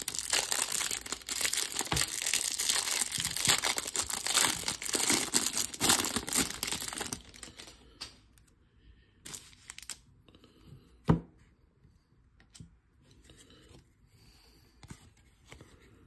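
Clear plastic shrink-wrap crinkling and tearing as it is pulled off a stack of baseball trading cards, dense for about seven seconds. Then only faint handling of the cards, with one sharp tap about eleven seconds in.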